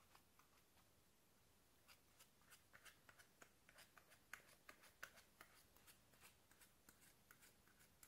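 Scissors snipping through the fabric of a plush stress toy: a faint run of short cutting clicks, few at first and coming quickly from about two seconds in.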